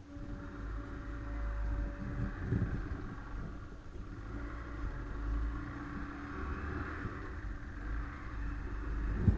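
Car driving along a road: a steady engine hum over a low rumble and tyre noise, with a brief bump near the end.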